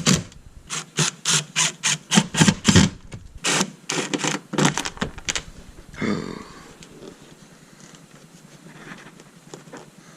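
Short rasping strokes in quick rhythm, about three a second, from hand work on a car door during a window-motor repair, stopping about five and a half seconds in, then a brief squeak and faint handling noise.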